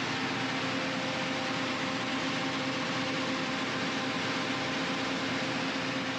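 Ship's emergency diesel generator running steadily on load: an even mechanical din with a constant low hum.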